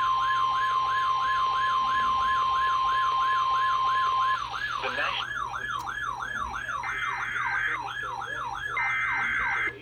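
Weather radios sounding a severe thunderstorm warning alert: a steady NOAA Weather Radio 1050 Hz alert tone, which cuts off about four seconds in, over a warbling siren alarm that rises and falls about three times a second. Short high beeps come in twice near the end.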